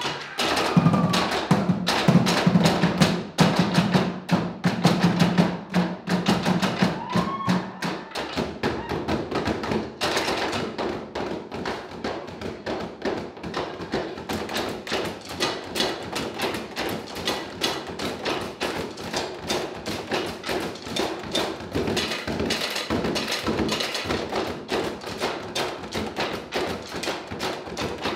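Live percussion ensemble drumming a fast, driving rhythm on barrel drums struck with sticks. The deep drum tones drop out about eight seconds in, leaving quicker, lighter taps and clicks.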